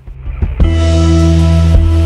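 Background music: a loud, bass-heavy held chord comes in with a drum hit about half a second in and holds.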